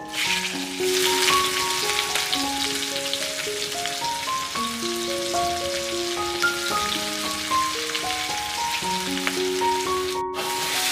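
Hot oil sizzling steadily in a wok as chillies, garlic and onion fry, the sizzle starting as the chillies drop in and breaking off for a moment near the end. Gentle piano-like background music plays over it.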